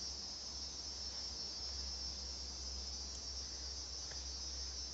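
Steady high-pitched background drone over a low hum, with no distinct handling sounds.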